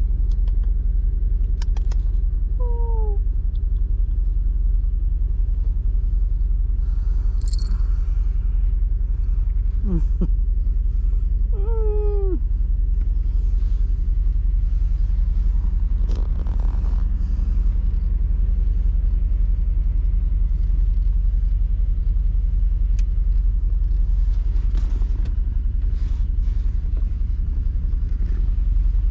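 A domestic cat meowing about three times, short calls falling in pitch, about 3, 10 and 12 seconds in, over the steady low road rumble of a moving vehicle.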